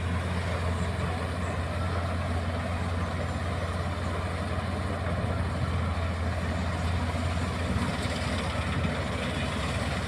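Combine harvester running steadily while cutting wheat: a deep, even engine hum with a broad rushing noise over it.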